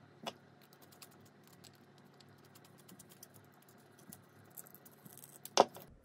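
Faint, scattered small clicks and ticks of a clear plastic L21-30 twist-lock plug and its wires being handled, as the green ground wire is fitted to its terminal, with a couple of louder knocks near the end.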